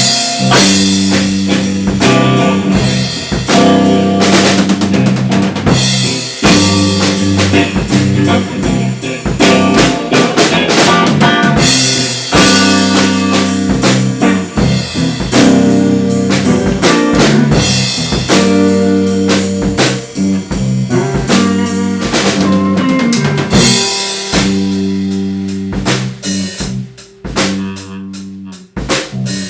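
Garage band playing a loud jam, led by a drum kit with kick, snare and rimshot hits over held low notes. Over the last few seconds the playing thins to more spaced-out drum hits.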